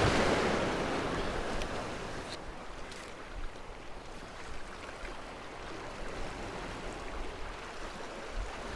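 Small waves washing and lapping against a rocky shoreline: a wash of water that fades over the first two seconds, then a quieter, steady lapping.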